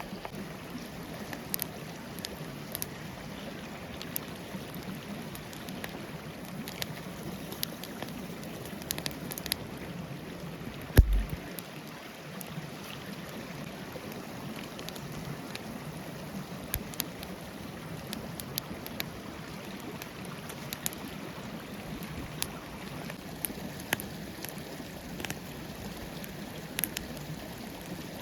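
Forest stream flowing steadily, with scattered sharp crackles and pops throughout. One loud, low thump about eleven seconds in.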